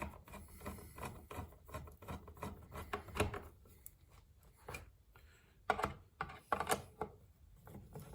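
Irregular small clicks, taps and scrapes of a plastic brake-light housing and its short screws being handled and fitted together by hand, with a few louder knocks about three seconds in and again around six to seven seconds in.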